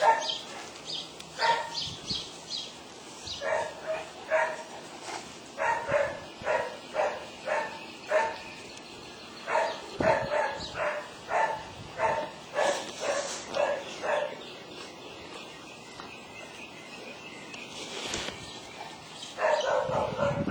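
Fila Brasileiro dogs barking during rough play, short barks coming in irregular runs, with a quieter stretch about three quarters of the way through.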